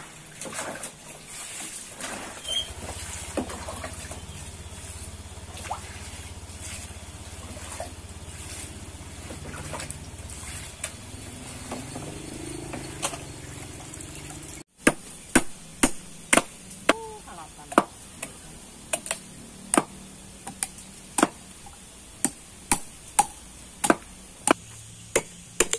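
Cassava leaves being swished and rinsed in a basin of water, with light splashing. About halfway through it cuts to a machete chopping at a coconut's husk: sharp, loud strikes, about two a second.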